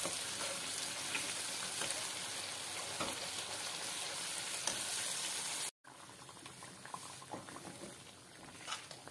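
Spiced masala paste sizzling as it fries in oil in a steel kadhai, being stirred with a steel spoon; it is at the stage of frying until the oil separates. The sizzle cuts out abruptly a little over halfway through, then goes on more quietly.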